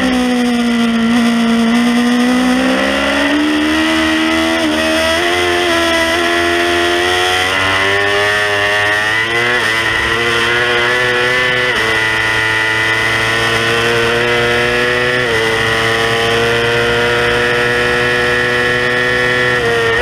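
Stock 2018 Yamaha R6's 600 cc inline-four engine at race pace, heard from the bike. The revs dip low at the start, then climb hard, stepping down abruptly a few times at the gear changes, and hold high near the end.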